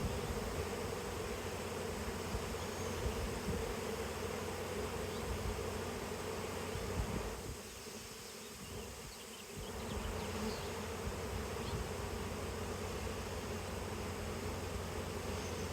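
Honey bee swarm buzzing: a steady, dense drone of many bees flying close by. It dips quieter for about two seconds midway, then returns.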